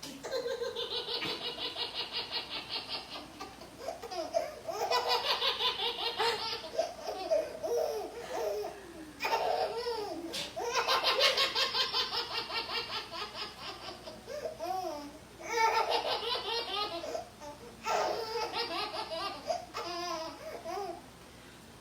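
A baby laughing hard in repeated fits. There are about five bouts, each a quick run of laughs several to the second, with short pauses between them.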